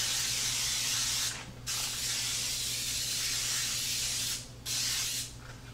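Baker's Joy aerosol baking spray hissing from the can as it coats cake pans. It sprays in three bursts: one breaking off just over a second in, a long spray of nearly three seconds, and a short last burst near the end.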